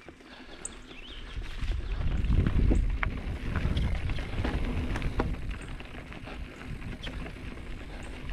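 Mountain bike riding along a dirt trail: a low rumble of tyres and wind on the microphone that swells about two to three seconds in, with scattered clicks and rattles from the bike.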